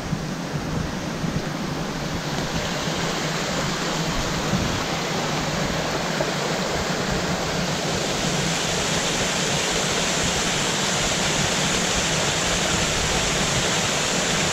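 Small waterfall on a creek running high after heavy rain, water splashing down over boulders in a steady rush that grows louder about two seconds in and again about eight seconds in.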